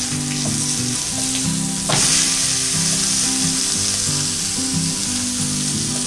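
Semolina-coated stuffed pomfret shallow-frying in oil in a pan, a steady sizzle that grows louder about two seconds in.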